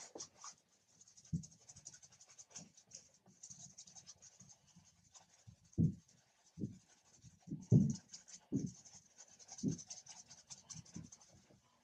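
A paintbrush scratches and scrubs acrylic paint onto a canvas in quick, repeated strokes. Several dull, low thumps come in among the strokes, the loudest about two-thirds of the way through.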